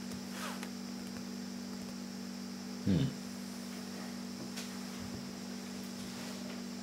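Steady low electrical mains hum. A short vocal sound breaks in once, about three seconds in.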